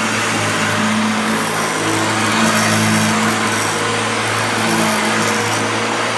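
A 1971 Hoover Junior 1346A upright vacuum cleaner running steadily at full speed, a loud motor hum under a broad rushing noise. The owner thinks its motor bearings are a little dry.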